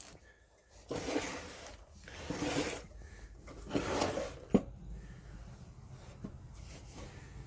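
Rummaging through a workshop drawer of screws and small hardware: drawers sliding and parts scraping and shuffling in several short bursts, with one sharp click about four and a half seconds in.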